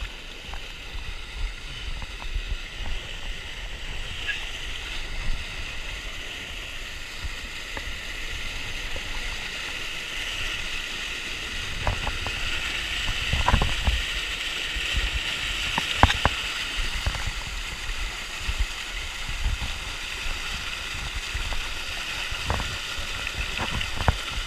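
Steady rush of river water over a small waterfall, with a low rumble underneath and a few sharp knocks in the second half.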